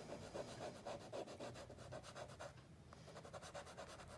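Faint skittering scratch of a stick of vine charcoal rubbed in small, quick circles over compressed charcoal on drawing paper, working the compressed charcoal's grit into the paper. Rapid strokes, with a brief pause a little before three seconds in.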